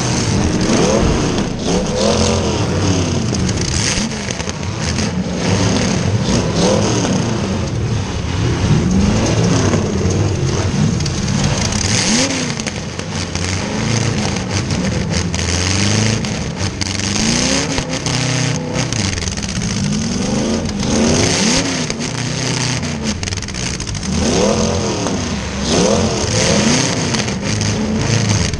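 Demolition derby car's V8 engine revving up and down again and again, heard close from a camera on the car's roof, with scattered sharp knocks.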